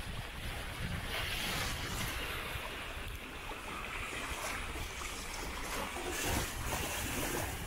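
Gusty wind buffeting the microphone over water rushing past the hull of a sailing yacht under sail.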